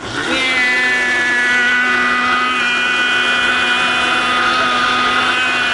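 Countertop blender motor starting up and running steadily, puréeing frozen fruit, yogurt and juice into a smoothie: a loud, even whine that rises in pitch briefly as it spins up, then holds steady.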